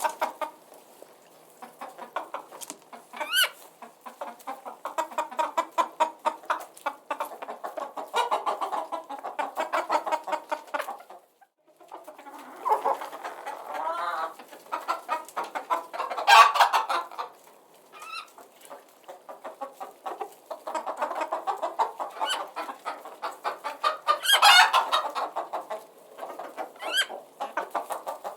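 A flock of chickens clucking in quick, overlapping runs, with a short lull about twelve seconds in and a couple of louder calls, about sixteen and twenty-four seconds in.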